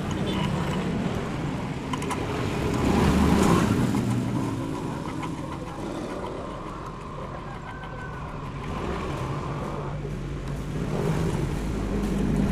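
A motor vehicle engine running, its sound swelling about three seconds in, easing off, and swelling again near the end.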